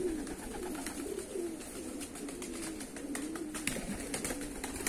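Domestic pigeons cooing: low, wavering coos one after another, with a few faint clicks.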